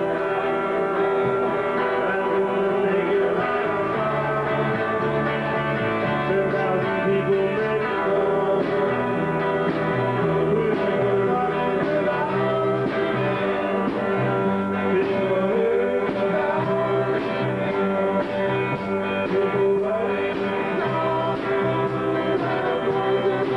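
Live band playing: electric guitars ringing over a bass line that steps from note to note, with a drum kit.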